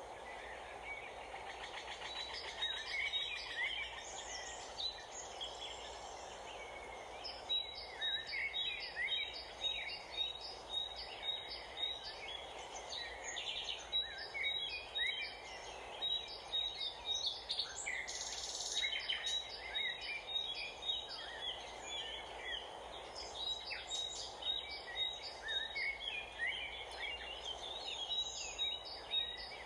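Backyard ambience: several birds chirping and calling over a steady background noise, with one high, short note repeated about three times a second through much of the stretch.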